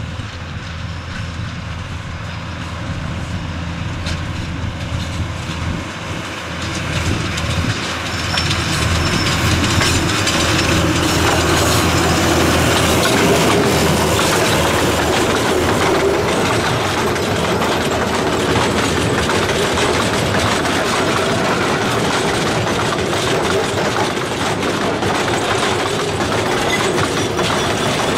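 Bord na Móna narrow-gauge diesel locomotive running steadily as it approaches. From about eight seconds in, a louder, continuous rattling and clattering takes over as the train of loaded peat wagons rolls past on the rails.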